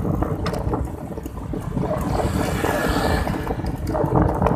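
Wind buffeting the microphone of a phone carried on a moving bicycle: a loud, uneven rumble with hiss above it, and a couple of light knocks.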